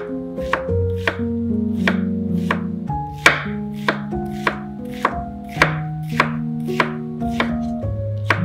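Kitchen knife dicing an onion on a wooden cutting board: even chopping strokes about three a second, a few of them sharper than the rest. Background music plays underneath.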